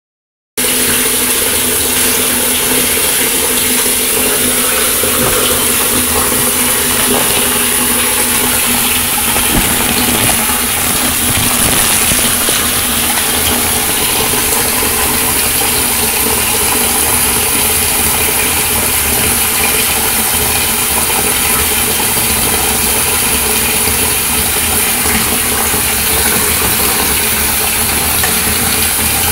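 Bathtub tap running: a steady rush of water with a low, even hum underneath.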